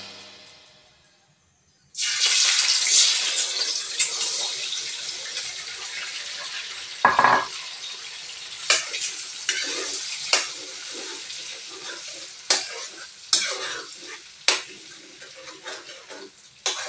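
Eggs dropping into hot oil in a steel wok, sizzling loudly from about two seconds in and slowly dying down. Through the second half a metal spatula clacks and scrapes against the wok as the eggs are broken up and stirred, with one heavier knock about seven seconds in.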